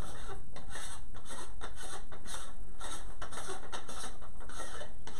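Irregular soft scrapes, rubs and light taps of hands handling a telescope tube as its front cover is worked off, a few a second over a steady background hiss.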